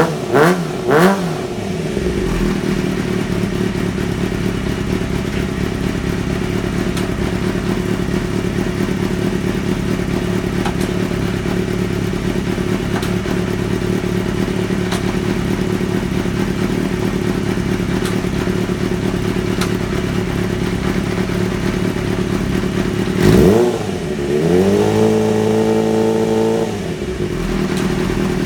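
Kawasaki ZXR race bike's inline-four engine running in gear with no chain fitted, while gear selection is checked. It is blipped twice at the start, then idles steadily; about 23 seconds in it is revved sharply, held at raised revs for about two seconds, then drops back to idle.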